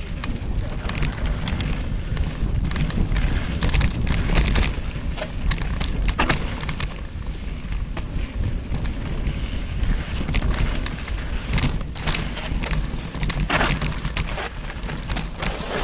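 Mountain bike riding down a dry, gravelly dirt trail: tyres rolling over loose stones, with frequent clicks and rattles from the bike over bumps. A constant low rumble of wind and vibration sits on the handlebar-mounted camera's microphone.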